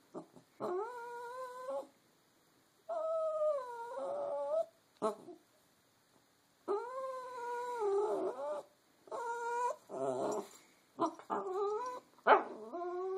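Boston terrier puppy whining in a series of long, pitched cries of a second or two each, the loudest one near the end. The puppy is stuck under the couch.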